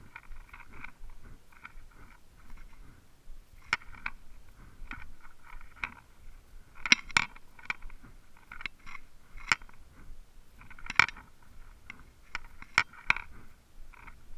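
Spinning fishing reel being cranked in short spells to retrieve a lure, a rasping whir broken up by sharp clicks and knocks of the rod and reel being handled; the loudest clicks come about 7 and 11 seconds in.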